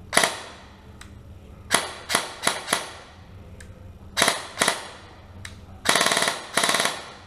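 Krytac Kriss Vector airsoft electric gun (AEG) firing: seven single shots at uneven spacing, then two short full-auto bursts near the end.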